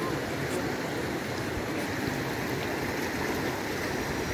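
Shallow river water running steadily over a rocky bed.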